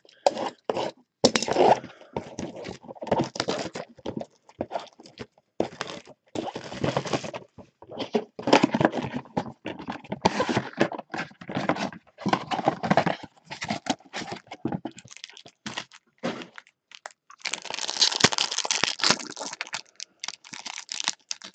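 Handling of a cardboard trading-card box and its cellophane-wrapped packs: irregular rustling, scraping and knocking, then a louder stretch of cellophane crinkling and tearing near the end as a pack wrapper is pulled open.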